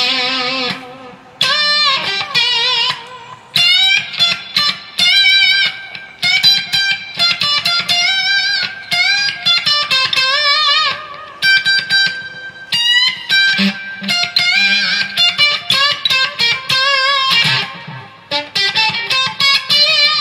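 Les Paul-style electric guitar played through a fuzz effect: a distorted lead line with string bends and wavering vibrato, in phrases broken by short pauses.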